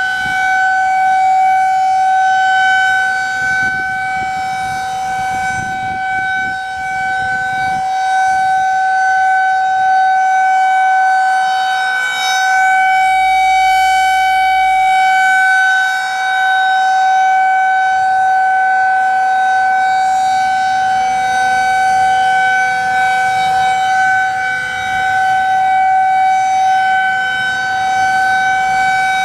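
Federal Signal 2001-SRNB rotating electromechanical outdoor warning siren sounding its steady alert tone. It holds one pitch while its loudness swells and fades slowly as the siren head rotates.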